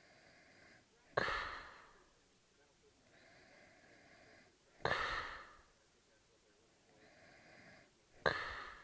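A man snoring in a steady rhythm: three loud, sudden snores about three and a half seconds apart, each fading over about a second, with a fainter, whistle-like breath in between.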